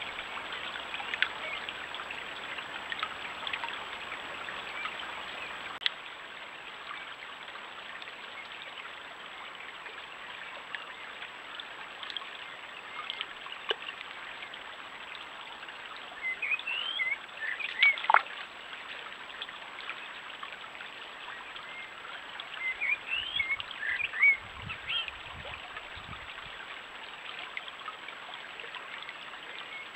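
A small stream trickling steadily over stones, with a bird chirping in two short bouts, one about halfway through and another several seconds later.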